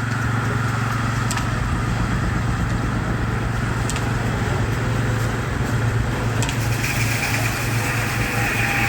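Baker 23-90 uniflow steam traction engine running steadily under load, belted to a Frick circular sawmill. A higher steady whine joins about seven seconds in.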